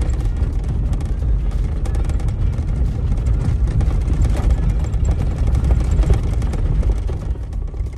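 A vehicle driving over a rough dirt road, heard from inside the cab: a loud, steady low rumble with many small knocks and rattles.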